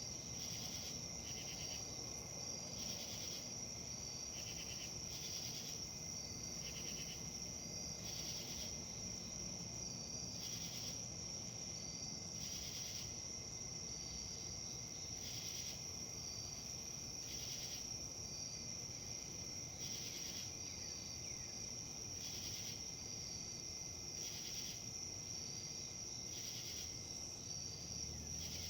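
Insects, crickets or similar, trilling in a steady high whine, with a pulsed chirp repeating every second or two. Under them runs a low, even rustle of wind in leaves.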